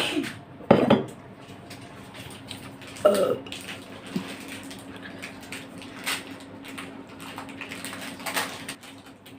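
Light clinking of dishes and cutlery, with short, sharp hiccups breaking in: one right at the start, one just under a second in, and a louder one about three seconds in.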